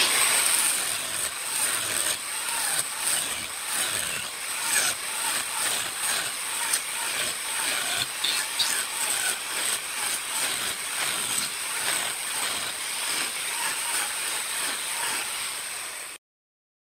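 Handheld angle grinder running and grinding away the rough waste wood from the base of a turned wooden vase: a steady high-pitched whine with a rasping, wavering grind as the disc bites into the wood. It cuts off suddenly near the end.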